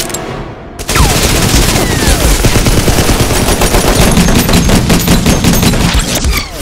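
Rapid, continuous volley of gunfire from several guns at once, as film gunshot sound effects. The shots start suddenly about a second in and run on without a break.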